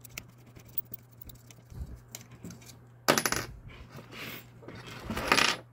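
Hard plastic and small metal parts of a 3D-printed animatronic head mechanism clattering as it is handled and set down on the workbench. A few light clicks come first, then three rattling bursts, the last and loudest near the end.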